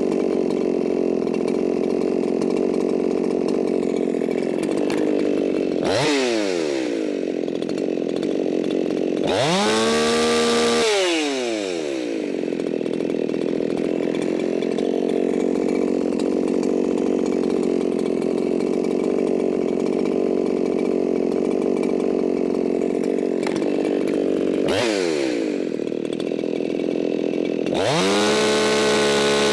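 Modified Echo 4910 two-stroke chainsaw engine running, revved up to a high-pitched full throttle twice, about a third of the way in and again near the end, falling back in between. The revving is a top-speed check of the carburettor's high-speed mixture against a tachometer.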